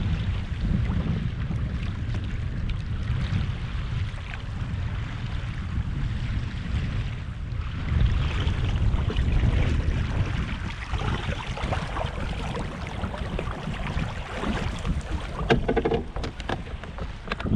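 Wind buffeting the microphone over water rushing and splashing along the hull of a canoe under sail, swelling louder about halfway through. There are a few sharp slaps near the end.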